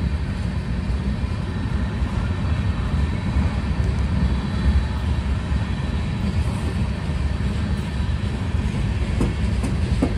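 Freight train of high-sided open-top gondolas rolling past close by: a steady low rumble of steel wheels on the rail, with a few sharp clicks near the end.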